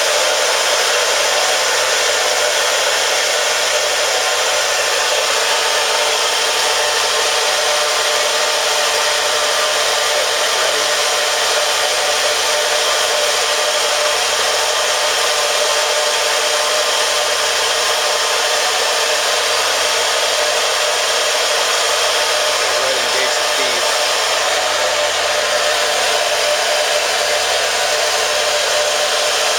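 Monarch Series 62 engine lathe running steadily, a continuous whirring hiss that holds the same speed throughout.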